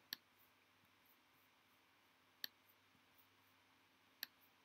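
Three short clicks of a computer mouse, about two seconds apart, over near silence.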